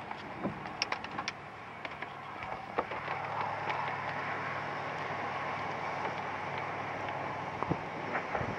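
Scattered raindrop ticks, then a steady rushing noise that comes up about three seconds in and holds.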